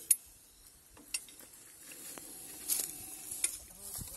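A metal snake hook knocking and scraping against a tractor's underside: a sharp click just after the start, a few fainter clicks later, and a short hissy scrape near the middle.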